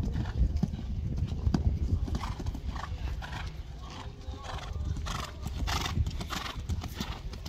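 A horse cantering on sand footing, its hoofbeats thudding in an even rhythm of about two strides a second.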